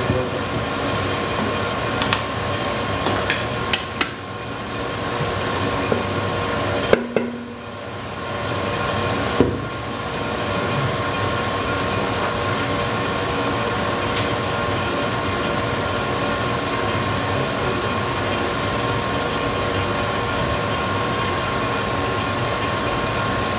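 Stand mixer running steadily at its lowest speed, its motor humming with a thin whine as the beater works flour into a thick butter-and-egg cake batter. A few sharp knocks in the first ten seconds.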